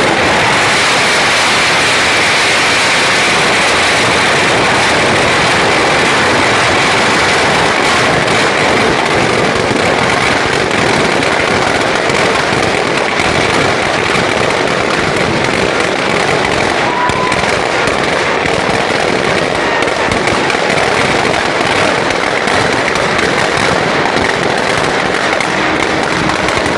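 Firecrackers packed inside a large burning effigy going off in a dense, continuous crackle of pops, loud and without a break.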